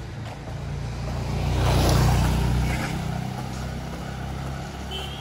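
A motor vehicle's engine passing close by, growing louder to a peak about two seconds in and then fading, over street background noise.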